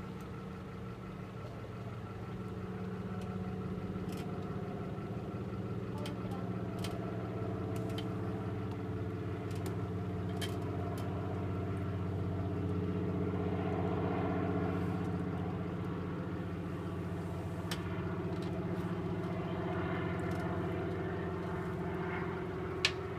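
An engine running steadily at an even, idle-like speed, with scattered light clicks and one sharp click near the end.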